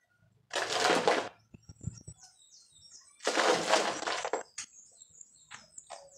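Loose soil scooped by hand and dropped into a plastic planter tub, in two rustling handfuls, one about a second in and a longer one a little past the middle. Faint bird chirps sound between them.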